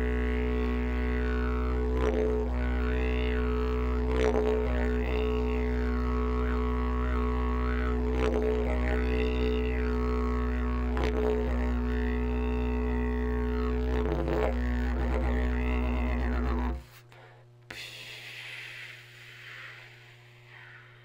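Music: a deep, steady drone whose overtones sweep up and down about every two seconds. It cuts off abruptly near the end, leaving only faint sound.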